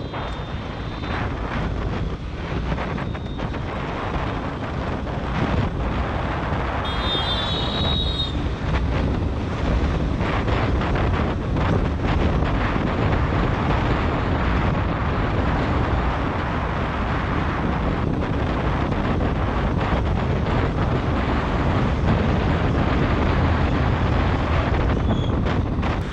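Wind rushing over a GoPro Hero 7's microphone on a moving motorcycle, mixed with the bike's running and road noise. A brief high wavering tone comes about seven seconds in.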